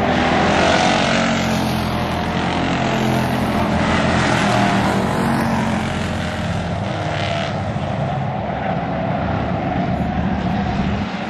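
Several stock-car race engines running together as the field circles a short oval track, a steady mass of engine sound that eases off somewhat in the second half.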